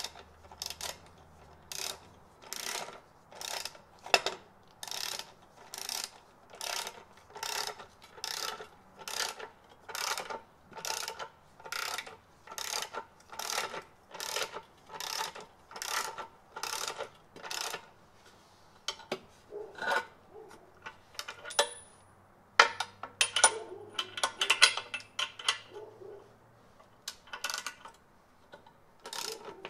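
Socket ratchet clicking in quick, even back-strokes, about one and a half a second, as it turns the forcing screw of a bushing press tool pressing a rubber bushing into a lower control arm. About two-thirds of the way through the ratcheting stops and gives way to irregular sharp metal clinks and clanks.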